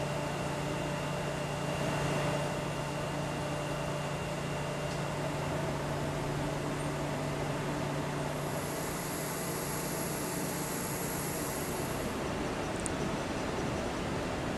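Steady mechanical hum and hiss of shop machinery, with a low drone and a few faint steady tones. A thin high whine comes in about eight seconds in and stops near twelve, about when the low drone drops away.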